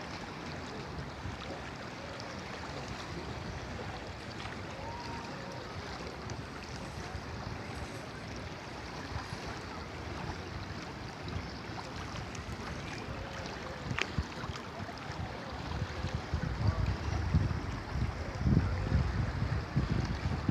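Kolubara river water flowing in a steady rush. From about three-quarters of the way in, wind buffets the microphone in loud gusts.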